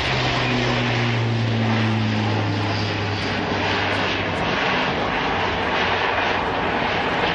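Airbus A400M Atlas's four TP400 turboprop engines with eight-bladed propellers running at high power as it climbs and banks away overhead. It makes a loud, steady rushing drone over a low propeller hum that fades out about four seconds in.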